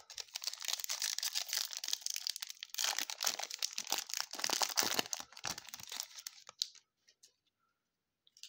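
Plastic wrapper of a baseball card pack being torn open and crinkled, a dense crackling rustle that stops about seven seconds in.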